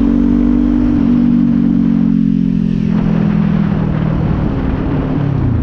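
Kawasaki Z400's parallel-twin engine running under way, steady at first, then its revs falling gradually over several seconds.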